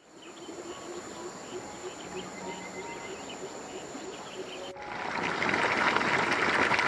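Forest ambience of insects with two steady high-pitched drones, a low call repeating about four times a second and scattered short chirps. Just after two-thirds of the way through it cuts abruptly to a louder, steady rushing noise.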